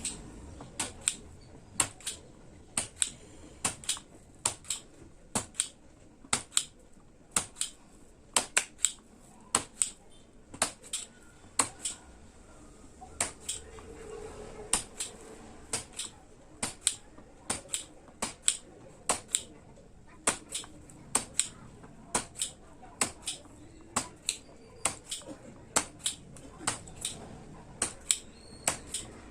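A long, uneven run of sharp, light clicks, about two a second, from hand work at the repair bench.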